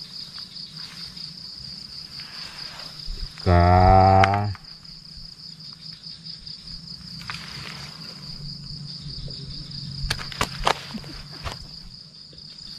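Crickets chirring in a steady, high, pulsing chorus. About three and a half seconds in, a loud pitched tone lasts about a second, and a few sharp clicks come near the end.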